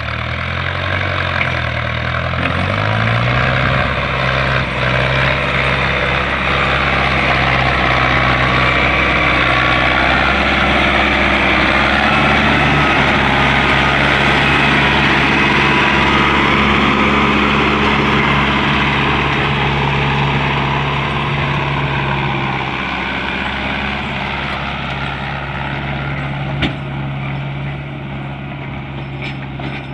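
Mahindra Arjun 605 DI tractor's diesel engine running under load while pulling two heaped trailers. Its pitch rises about two seconds in, then holds steady. It grows louder as the tractor passes close and fades somewhat near the end.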